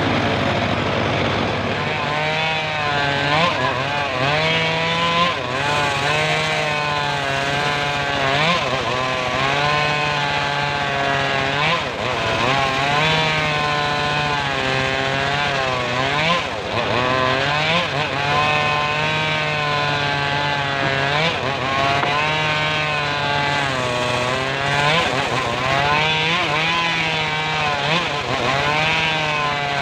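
Homemade engine-driven circular sawmill ripping a log into boards. The engine runs loud and continuous, its pitch dipping and recovering again and again as the blade takes the load of the cut.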